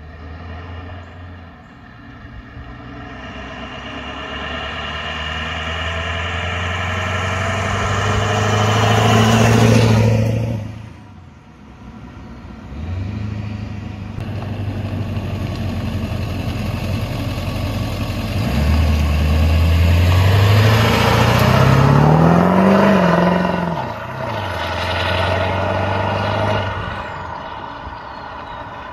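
2001 Ford 7.3 Powerstroke V8 turbodiesel with a 66 mm Garrett PowerMax turbo, accelerating hard past at full throttle. It grows louder up to about a third of the way in, then drops off sharply. A second run follows, the engine pitch climbing and falling again before fading out.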